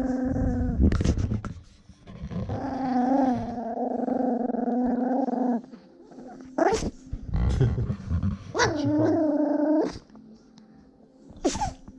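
Russian toy terrier growling close to the microphone in three long, pitched bouts with pauses between. Short, sharp sneezes come in the gaps, about seven seconds in and again near the end.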